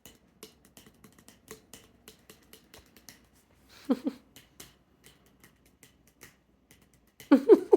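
Light, quick drumming taps on a hard surface, a string of sharp clicks about three or four a second. Two short, louder voice-like sounds sliding in pitch come in, one about four seconds in and another near the end.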